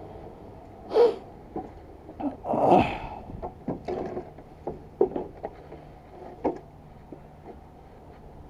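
Irregular knocks and clatter of equipment being handled and moved past a wooden gate, with sharp hits about a second in and again about five seconds in, and a longer scraping rattle, the loudest, near three seconds in.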